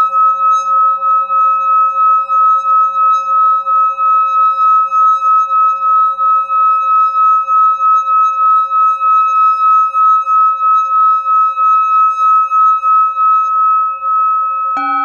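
Brass singing bowl rubbed around its rim with a wooden stick, giving one sustained high singing tone that pulses about three or four times a second. Near the end another bowl is struck and a deeper ringing tone sounds over it.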